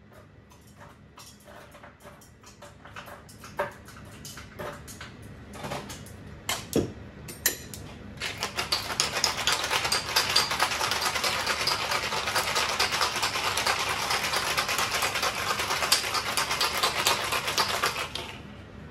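Scattered clinks and knocks as a metal cocktail shaker is readied, then, about eight seconds in, the shaker is shaken hard with ice: a dense, even rattle for about ten seconds that stops shortly before the end.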